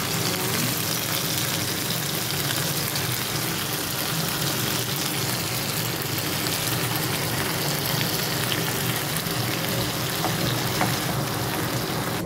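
Pan of tomato and sardine sauce sizzling steadily on a gas stove as fresh spinach leaves are piled in and turned, with a few light ticks.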